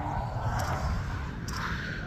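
Wind buffeting the microphone outdoors, an uneven low rumble with a softer hiss and a few faint ticks.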